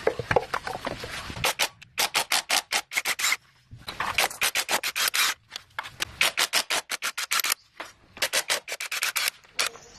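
Quick back-and-forth abrasive strokes by hand on a hard surface, about six a second, in runs broken by short pauses.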